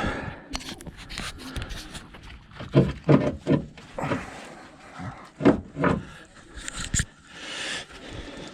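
Strained breathing and grunts of effort while a front CV axle shaft is worked in to engage its splines, with metal rubbing and scraping and a sharp knock about seven seconds in.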